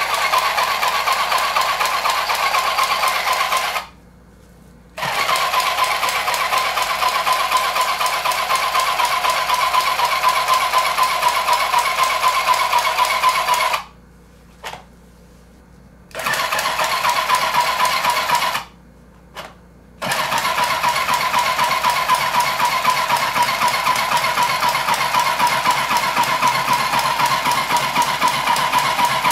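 Small handheld sewing machine running as it stitches Velcro onto nylon tent fabric, a steady mechanical whir that stops briefly and starts again three times, at about four, fourteen and nineteen seconds in.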